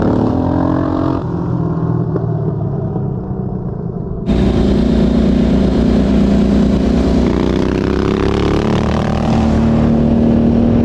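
KTM 990 motorcycle V-twin engines running under throttle. About four seconds in the sound suddenly jumps louder and brighter, then the engine note rises as the bikes accelerate and settles at a steady high pitch.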